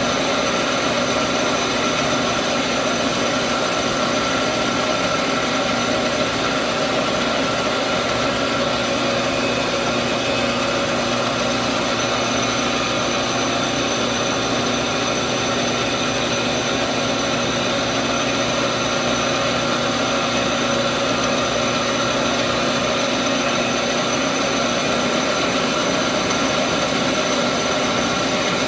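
Metal lathe running steadily while its cutting tool turns down a spinning metal workpiece, a constant machine hum with a few steady whining tones.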